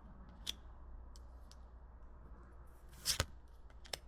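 Trading cards being handled and flipped through: a few short soft clicks and flicks, the loudest about three seconds in, over a faint low hum.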